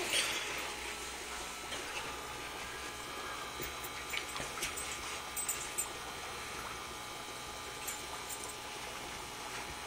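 Steady trickle of water in a running aquarium, with a brief rustle at the very start and a few light ticks about four to six seconds in.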